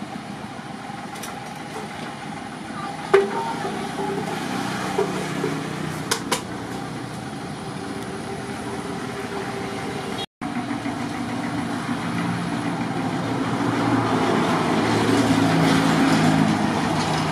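Road traffic engines: a two-wheel walking tractor pulling a loaded wooden trailer runs past with a steady engine hum, then a truck passes close and the sound grows louder near the end. A few sharp knocks are heard in the first half.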